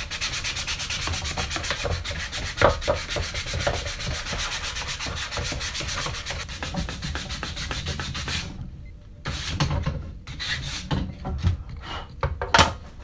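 Sandpaper on a hand sanding block rubbed back and forth in fast, even strokes along the routed bevel of a wooden frame, smoothing the edge so no defined line is left. The steady strokes stop about eight and a half seconds in. A few slower scrapes and sharp knocks follow as the block and frame are handled and set down.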